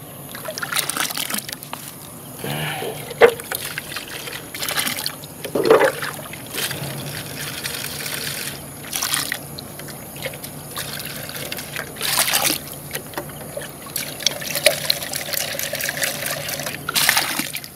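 A clear plastic bait jar dipped and swished in shallow lake water among rocks. Water trickles, sloshes and pours in and out of it in a string of uneven splashes, as the jar is emptied and rinsed.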